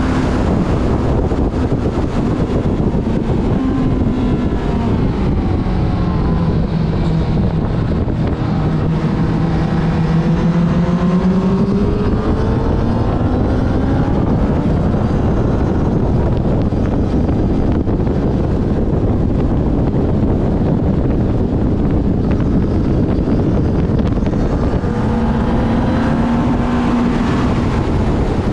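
Motorcycle engine at racing speed, heard from an onboard camera under heavy wind rush on the microphone. The engine note climbs for several seconds about a third of the way in and then falls away, with stretches where the wind noise covers it.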